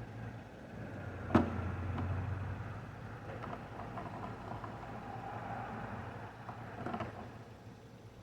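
A car engine idling with a steady low hum, with a sharp clack about a second in and a smaller one near the end.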